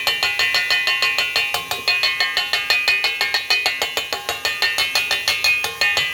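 A utensil beating mixture in a bowl by hand, striking the bowl in a fast, even rhythm of about six clinks a second, each with a brief ringing tone from the bowl.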